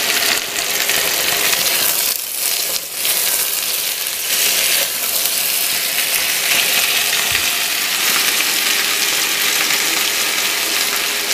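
Sliced potatoes and onion sizzling steadily as they fry in vegetable oil in a pan, with a couple of brief dips in the sizzle about two seconds in.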